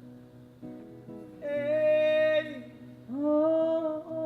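Live band music: a singer holds two long sung notes, the second sung as 'hey', over soft acoustic guitar, the first note entering about a second and a half in.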